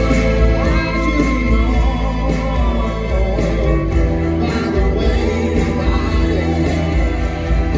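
A rock band playing live, with singing over electric guitar, bass and drums with cymbals.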